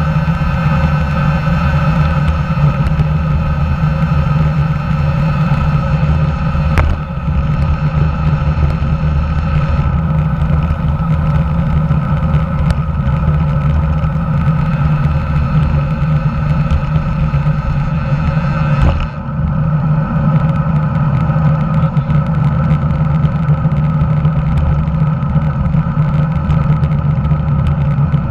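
Steady rumble of road and wind noise picked up by a camera mounted under a road bike's handlebars, the tyres rolling over rough, cracked asphalt. Two brief knocks come about 7 seconds in and again about 19 seconds in.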